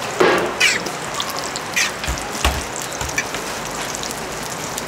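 Hotteok dough frying in oil on a flat steel griddle, a steady sizzle, with a few sharp clicks and low thuds from the metal hotteok press against the griddle about two seconds in.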